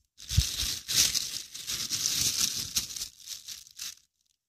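Crinkling and rustling of material being handled, with a dull knock about half a second in; it cuts off abruptly shortly before the end.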